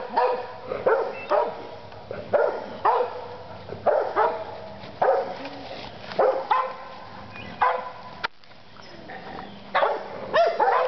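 Young American Bulldog barking over and over in short play barks, roughly one or two a second, with a brief lull about eight seconds in.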